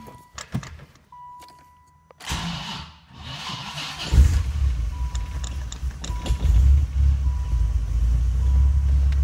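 Dodge Viper 8.0-litre V10 being started: the starter cranks briefly off a jump pack that is a little dead, then the engine catches suddenly about four seconds in and settles into a steady, deep idle.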